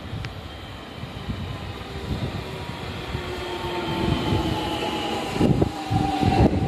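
JR 313 series electric train pulling into the station, its motor whine falling slowly in pitch as it brakes, with strong wind buffeting the microphone.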